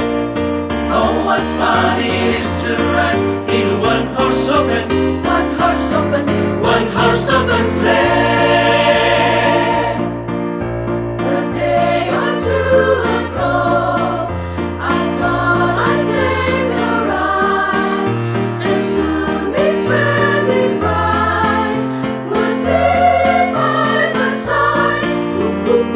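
Vocal group singing a Christmas medley arrangement in close harmony, over a bass line that moves note by note, with sharp percussive hits.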